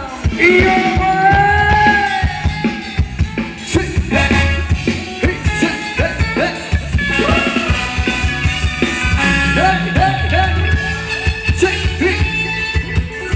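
Live Thai ramwong band music: a voice singing over drums keeping a steady dance beat, played loud.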